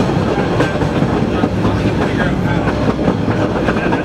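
Boston Red Line 01400-series subway car running at speed, heard from inside the car: a steady loud rumble of wheels on rail with frequent short clicks, clickety-clack over the track.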